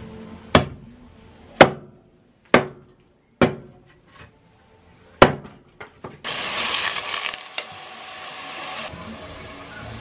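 Hatchet chopping into a stick to split kindling: five sharp strokes about a second apart, then a few lighter knocks. About six seconds in, food starts sizzling loudly in a hot pan, then settles to a quieter, steady frying.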